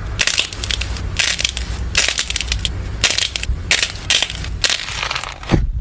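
Slime being squeezed and pressed by hand, giving repeated bursts of crackling and popping about twice a second.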